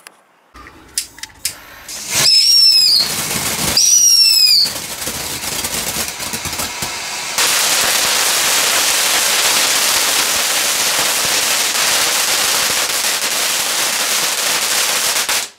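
Bad Boy Earthquake shot-tube firework going off: a few sharp pops, then two shrill whistles, then a long steady loud hissing crackle of sparks that cuts off suddenly near the end.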